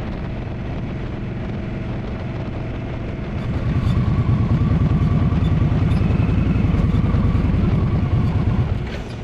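Indian Scout Bobber's V-twin engine running while riding, growing louder about three and a half seconds in and dropping back near the end.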